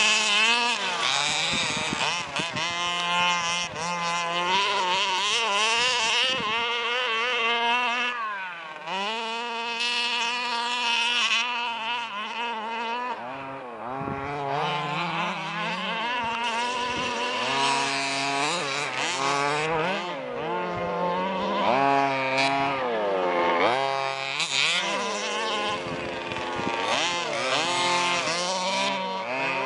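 Large-scale petrol RC buggy's small two-stroke engine revving up and down again and again as it is driven hard, its pitch rising and falling every second or two.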